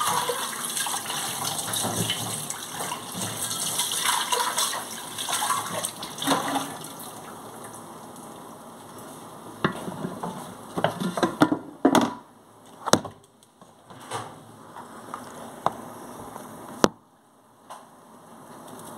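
Tap water running into and splashing off a cooking pot in a stainless-steel sink as it is rinsed and scrubbed. After about seven seconds the water noise drops away, and a series of sharp knocks and clatters follows as pots and dishes are handled in the sink.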